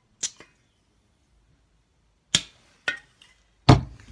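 Propane hissing in short spurts as a propane bottle with an adapter charges a gas blowback pistol's magazine: a brief hiss near the start and a stronger one about two and a half seconds in. Then come a couple of light clicks and a heavy thump, the loudest sound, near the end.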